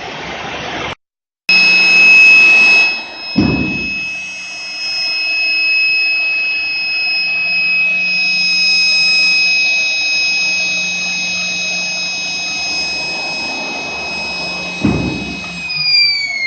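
SWIWIN RC micro turbine jet engine on a test run after balancing, running at a steady high speed with a steady high-pitched whine. Near the end it spools down and the pitch falls. Two brief low thumps sound in between.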